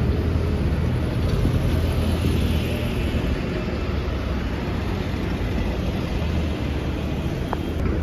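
Steady city street traffic rumble, with a double-decker bus and cars running by.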